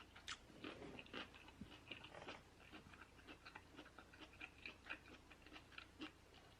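Close-miked chewing of crunchy cooked broccoli, faint, with many small crunching clicks several times a second.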